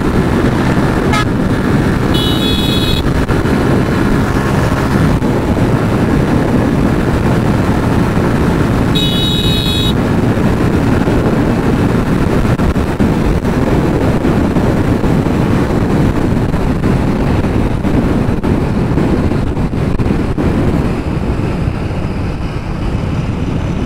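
Motorcycle riding along a highway: steady engine and wind rush, with two short horn blasts, about two and nine seconds in.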